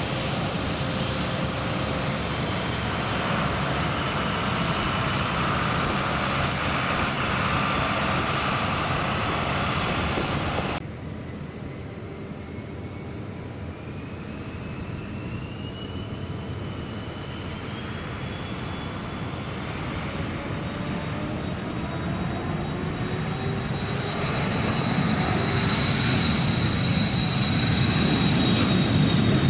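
Aircraft engine noise in two takes, with a sudden cut between them about eleven seconds in. The first is a loud, steady engine noise. In the second, an engine whine climbs in pitch, then holds steady as a low rumble grows louder toward the end.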